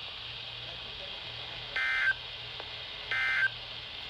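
Emergency Alert System end-of-message data bursts on a NOAA Weather Radio broadcast: two short buzzy digital tone bursts, each about a third of a second long and a little over a second apart, over steady radio hiss. They mark the end of the marine warning.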